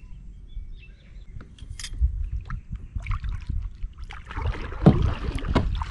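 Kayak paddling: water splashing and dripping from the paddle, with scattered knocks. It grows denser about four seconds in, with a sharp knock near five seconds, over a low rumble.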